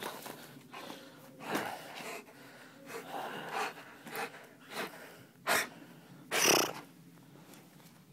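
A Dobermann breathing hard in a string of short, noisy huffs while play-biting a hand, about seven of them, the loudest near the end.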